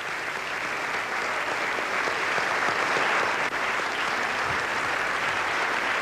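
Audience applauding, an even clapping that swells a little over the first few seconds and then holds steady.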